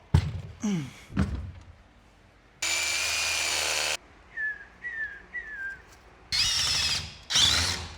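Power drill running in two short bursts of about a second each, with sharp knocks and clatter of work on wall brackets around them and three short squeaks in between.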